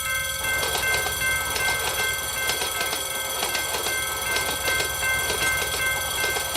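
A train passing over a level crossing, with a rumble and rattle starting about half a second in, while the crossing's warning bell rings steadily over it.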